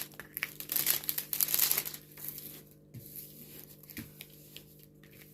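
Plastic film on a diamond painting canvas crinkling as it is handled, busiest in the first two seconds, then dying down to faint rustles and a few light taps.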